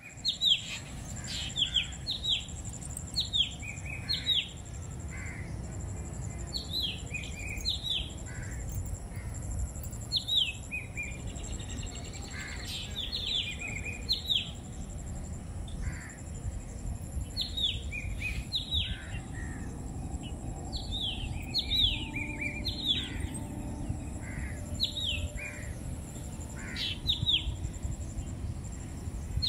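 Birds calling in short chirps that fall in pitch, in quick runs of two or three, repeating over a low steady rumble.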